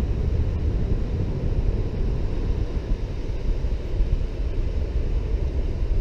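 Wind buffeting the microphone of a motorcycle-mounted camera over the steady low rumble of a Suzuki Boulevard motorcycle riding along.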